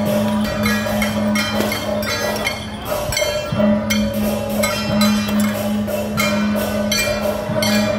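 Traditional Chinese percussion music with rapid, even strikes over a steady held tone.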